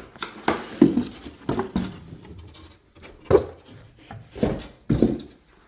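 A custom wooden display case being handled: a string of irregular knocks, taps and light scrapes of wood.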